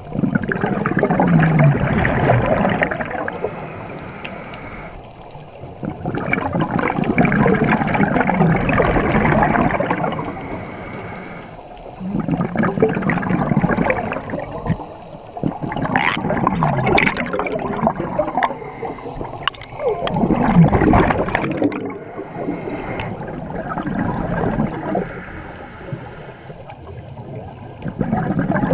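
Scuba diver breathing through a regulator underwater: a gurgling rush of exhaled bubbles every four seconds or so, with quieter pauses for each inhale between.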